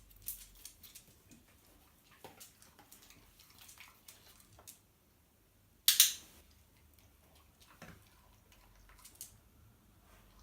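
Soft rustles and small clicks of handling, with one sharp, loud click about six seconds in.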